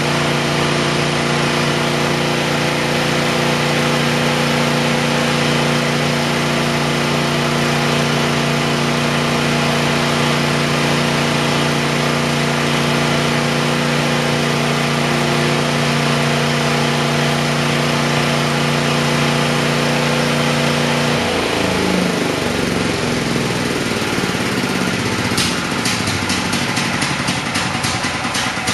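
Stanley CH7 chipper shredder's 270 cc engine running steadily, then shut off about three quarters of the way in. Its heavy flywheel and cutting rotor keep spinning after shut-off, and the sound falls away as they coast down. A run of ticks comes in the last few seconds.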